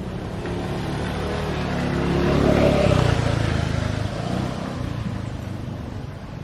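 A motor vehicle passing by: its engine noise builds to its loudest a little under three seconds in, then fades away.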